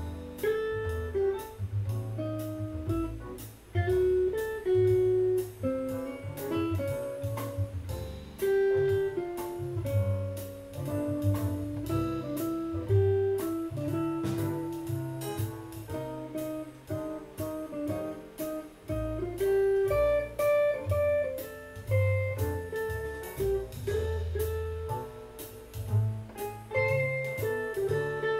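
Solid-body electric guitar playing a jazz single-note melodic line, one note at a time, over a backing track with a bass line.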